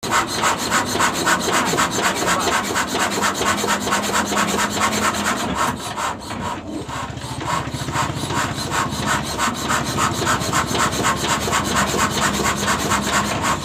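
S1115 single-cylinder diesel engine turning over with a steady rhythmic beat, about five beats a second, the beat slowing slightly about seven seconds in.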